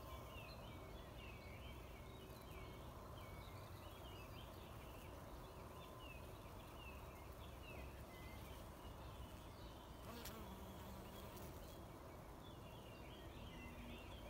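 Faint outdoor garden ambience: a steady low rumble under a busy scatter of short, high chirps, with a single sharp click about ten seconds in.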